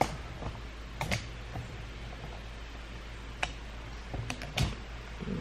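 About half a dozen sharp clicks and light taps at irregular intervals, two close together about a second in and a cluster near the end, over a steady low hum.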